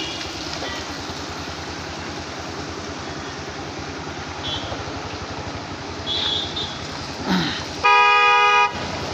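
A vehicle horn sounds once near the end, a steady blare just under a second long, over a steady rushing background noise.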